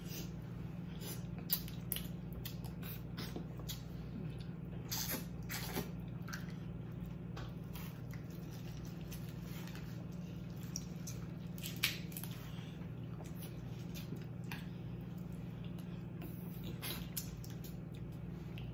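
Close-miked wet eating sounds of snow crab meat and shrimp in butter sauce: squishy chewing and lip smacking with scattered clicks, two sharper clicks standing out about a second and a half in and near the middle. A steady low hum runs underneath.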